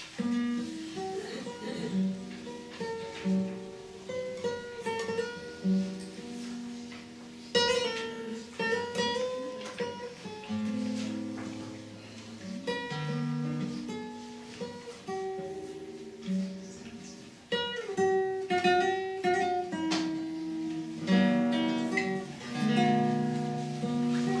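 Solo classical guitar played fingerstyle: a run of plucked melody notes and chords, with a few chords strummed sharply, about 8, 17.5 and 21 seconds in.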